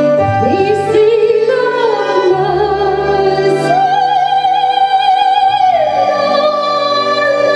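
A woman sings operatic soprano in a mock-opera voice for a ventriloquist's opera-singer puppet. Long held notes with vibrato sound over instrumental backing, with a slide down in pitch about six seconds in.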